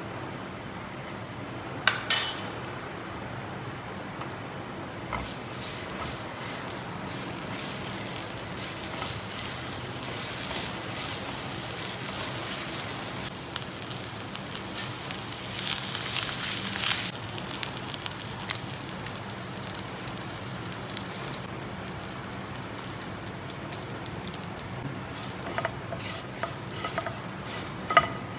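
Chopped garlic and chilli flakes sizzling in olive oil in a nonstick frying pan, the hiss growing louder for a while in the middle. A sharp clack about two seconds in, and a silicone spatula stirring and tapping in the pan near the end.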